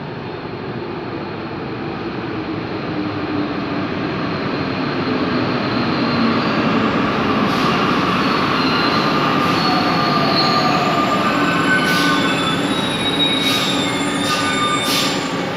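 Seven-car NS-93 rubber-tyred metro train pulling into an underground station and braking to a stop, its running noise growing louder over the first six seconds. Whining brake tones come in as it slows, and near the end several short high-pitched squeals.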